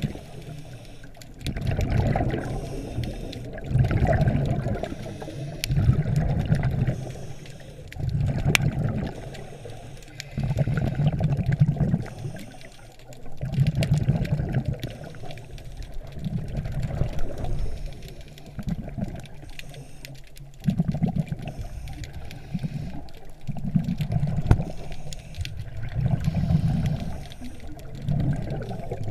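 Underwater sound through a GoPro Hero 3's waterproof housing: a muffled rush of water that swells and fades about every two seconds.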